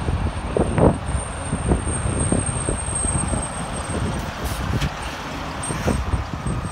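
Diesel tractor-trailer hauling a tanker passing close by on the road, its engine and tyres making a steady low rumble.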